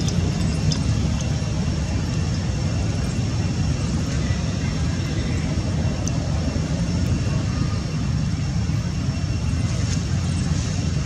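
Steady low rumble of background noise, loudest in the bass, with a few faint scattered ticks.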